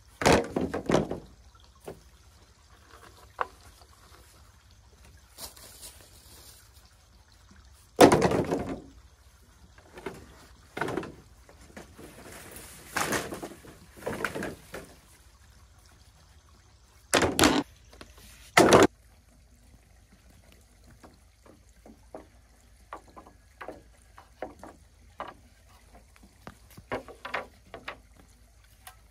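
Work on dried bamboo poles: separate knocks and clattering, loudest just after the start, about eight seconds in and twice close together near the middle, then lighter clicks and taps.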